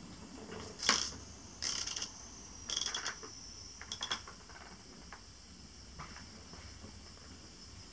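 Insects chirring steadily and high-pitched, with four short rustling or handling noises close to the microphone in the first four seconds.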